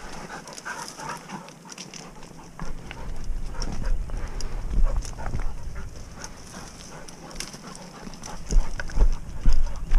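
Footsteps on loose stone and brush against clothing while walking through rocky scrub. Irregular clicks and knocks, with heavier low thuds starting about two and a half seconds in and loudest near the end. A dog's sounds are mixed in.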